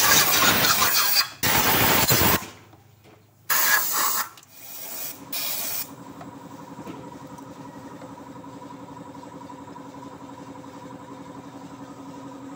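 Pressurised spray hissing in loud bursts while cleaning a bare diesel engine block deck: one long burst of about two seconds, then two short ones. A faint steady hum follows.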